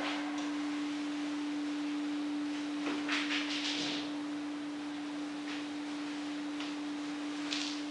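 A steady single-pitch hum that runs on without change, with a short burst of hiss or rustle about three seconds in and another near the end.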